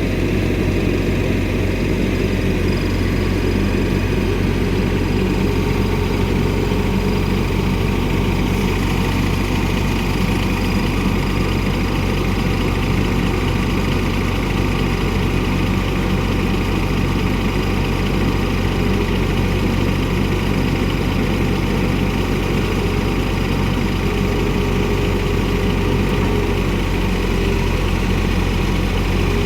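Caterpillar wheeled excavator's diesel engine running steadily at a constant speed while it works to lift a steel plate out of mud.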